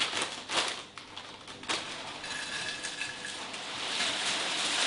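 A plastic bag of Lay's potato chips crinkling as it is torn open, then chips pouring out onto a plate in a steady rustling hiss that grows louder toward the end.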